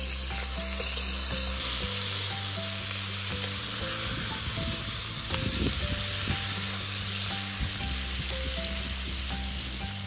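Beef steak sizzling as it sears in a hot cast-iron Dutch oven, the sizzle growing louder about two seconds in.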